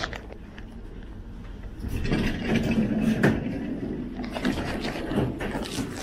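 Metro train stopped at an underground station, with its doors open and passengers stepping off onto the platform. From about two seconds in there is a louder stretch of rumble and clatter with scattered knocks.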